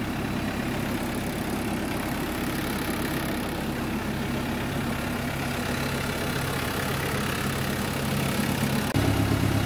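Engine running steadily with a low hum, getting louder about nine seconds in.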